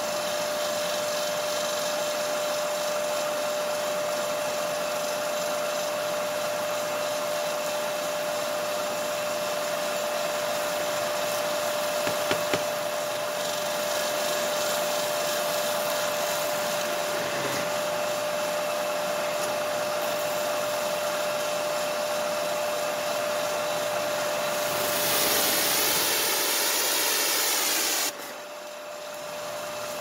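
Hot-water pressure washer running just after firing up: a steady drone with a constant whine from its pump and burner blower, and water spraying from the wand. Near the end a louder, brighter hiss cuts off suddenly, with the machine still running after it.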